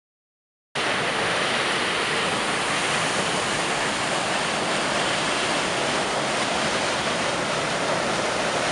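Water gushing from a large pipe into a concrete tank: a steady rushing that cuts in suddenly about a second in.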